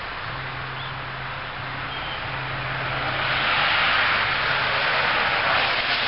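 A car driving past on a wet street: tyre hiss that swells to its loudest about four seconds in, with a steady low engine hum.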